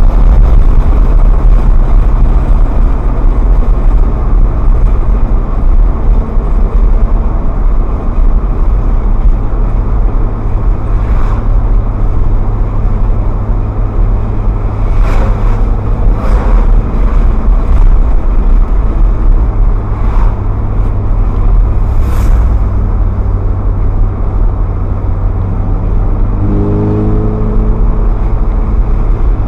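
Ferrari F430's V8 engine running while the car drives along at a steady pace, a continuous low drone with road noise. A few brief clicks or knocks come through the middle, and a short rise in engine pitch comes near the end.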